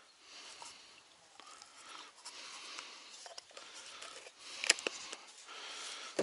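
Rustling and light knocks of things being handled, with a sharp click about four and a half seconds in.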